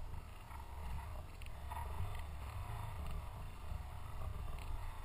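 Low, unsteady wind rumble on a running camera's microphone, with faint crunching footsteps on gravel.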